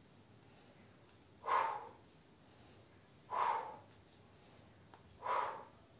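A woman's forceful exhalations through the mouth, three short puffs about two seconds apart, one on each rise from a squat.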